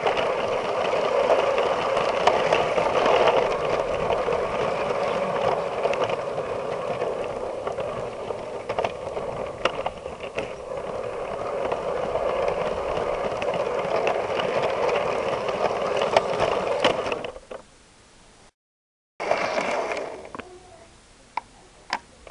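Lego 9V train motor running, with the plastic wheels rattling and clicking along the track, heard from on board the Lego 4558 Metroliner. The running stops about 17 seconds in, and a short noise and a few ticks follow near the end.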